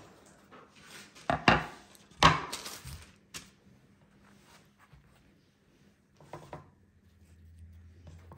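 A few sharp knocks and clatters of kitchenware being handled. The loudest come about one and a half and two and a quarter seconds in, with lighter taps later.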